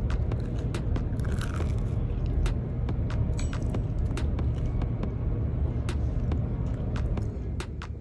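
People eating pizza rolls close to the microphone: scattered clicks and small crunches of biting and chewing over a steady low rumble.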